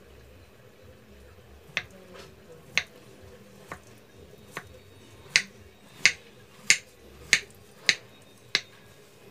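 Kitchen knife slicing boiled, peeled elephant foot yam into rounds, the blade tapping the wooden cutting board about ten times, a little faster toward the end.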